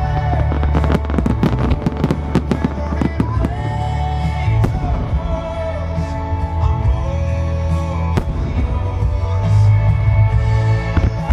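Fireworks bursting over a loud song: a fast run of sharp bangs and pops in the first three seconds or so, then a few single reports, with the music running on.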